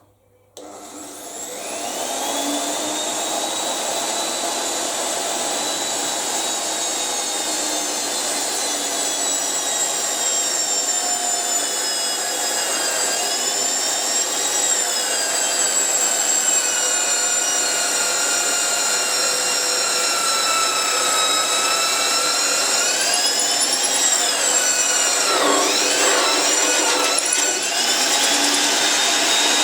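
Titan PMD 16 magnetic-base drill starting about half a second in, its motor whining up to speed, then running steadily while it drills into steel. The pitch sags briefly around the middle and several times near the end as the bit loads up in the cut.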